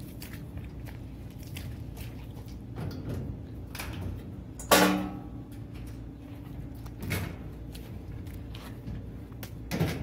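Clunks and knocks of a Whirlpool Cabrio top-load washer being tipped on a hand truck and lifted onto a pickup's tailgate. There is one loud metallic bang about five seconds in that rings briefly, and a few smaller knocks near the end.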